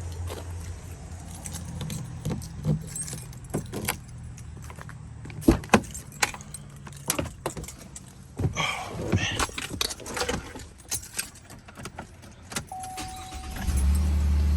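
Keys jangling among a run of sharp clicks and knocks, with a car's low engine hum coming up loud near the end.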